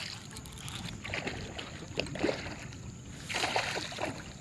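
Hooked largemouth bass splashing and thrashing at the water's surface while being fought on the line, with a few short sharp knocks and a louder burst of splashing about three seconds in.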